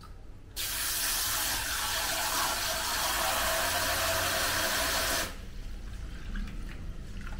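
Kitchen faucet spray head running water into a steel bowl of moong dal as it is rinsed, starting about half a second in and shut off abruptly about five seconds in.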